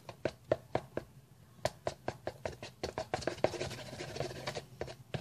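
Glue-based slime mixture being stirred in a bowl: irregular scraping and clicking of the stirring utensil against the bowl.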